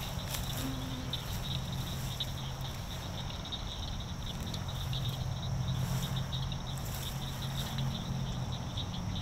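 Steady outdoor chorus of calling insects and frogs: a fine, pulsing high trill that runs on without a break, over a low steady drone.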